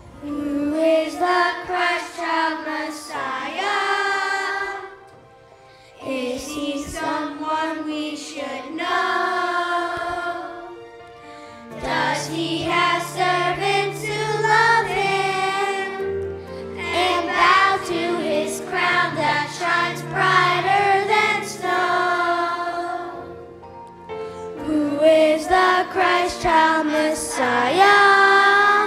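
Children's choir singing a song in phrases, with short breaks between them. Low accompanying bass notes join in about twelve seconds in and fade out around two-thirds of the way through.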